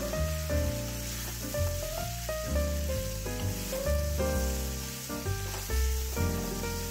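Background music with a melody and bass line, over a steady sizzle of chicken pieces frying in masala paste as they are stirred in the pan, cooking off the raw paste.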